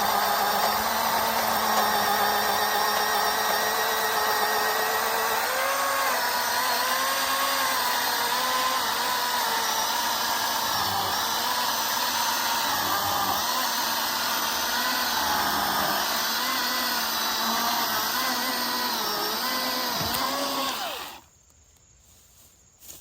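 Milwaukee M18 battery-powered chainsaw with a 16-inch bar cutting through a large dry log. The electric motor's whine dips and recovers in pitch again and again as the chain bogs under load, then stops abruptly about 21 seconds in as the cut finishes.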